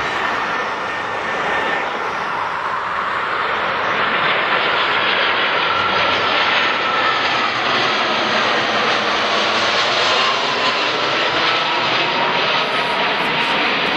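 Twin-engine Airbus A320-family jet airliner on final approach with gear down: the engines make a steady jet noise with a faint high whine on top, growing a little louder about four seconds in as the aircraft passes close.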